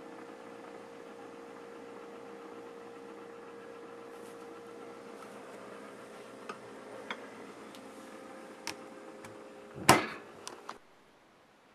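Refrigerator running with a steady hum, with a few light clinks of glass bottles, then a loud knock and short rattle about ten seconds in, after which the hum stops.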